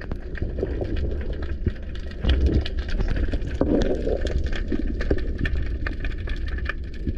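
Underwater sound picked up through a camera's waterproof housing: a steady low rumble of water moving past, with swells of swishing noise and many scattered sharp clicks and crackles.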